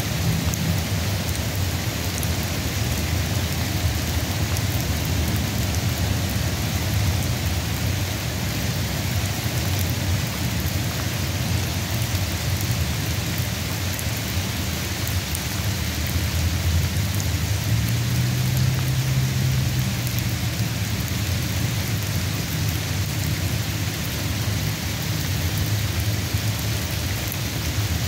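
Steady rain falling, an even hiss across the whole range, with a low rumble underneath that swells briefly about 18 seconds in.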